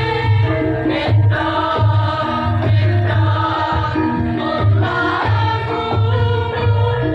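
A women's choir singing together in harmony over instrumental accompaniment with a low, pulsing bass line.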